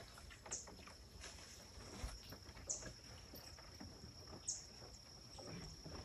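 Quiet marsh ambience heard from a small boat moving along a channel: faint knocks and water sounds from the boat, a steady high-pitched hum, and three brief high chirps about two seconds apart.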